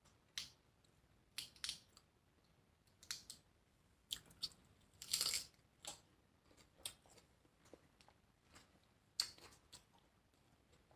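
Faint chewing and crunching of lettuce-wrapped tacos: irregular wet crunches and mouth clicks, with a longer burst of crunching about five seconds in.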